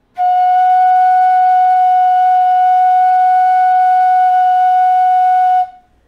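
G-key bamboo bansuri flute holding the note Ni (F sharp) as one long, steady, clear tone for about five and a half seconds, blown as a tuning check. It stops cleanly near the end.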